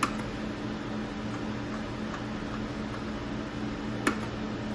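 Steady machine hum with a few low, even tones under a background hiss, broken by a sharp click at the start and another about four seconds in.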